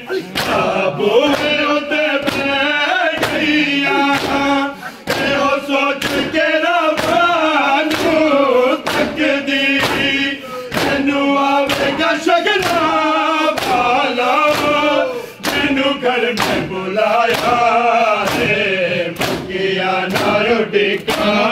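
A group of men chanting a Punjabi noha (mourning lament) in unison, with open-handed chest beating (matam) landing in a steady rhythm of slaps.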